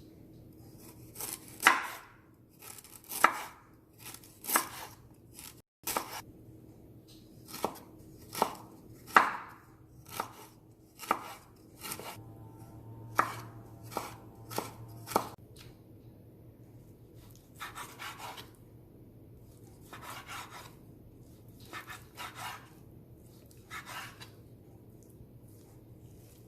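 Kitchen knife chopping garlic, onion and ginger on a cutting board. Sharp, irregular single strokes come about one a second for the first half, then softer, longer strokes follow.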